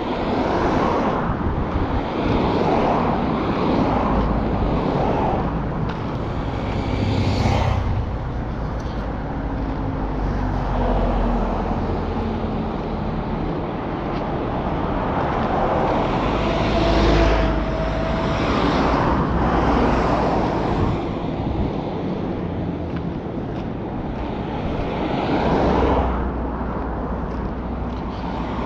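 Roadside traffic noise: a steady outdoor rumble with vehicles passing now and then.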